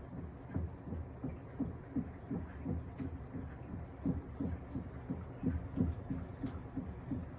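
Panasonic top-loading washing machine agitating a wash load: water and laundry sloshing in the tub in an uneven run of low swishes, about two or three a second.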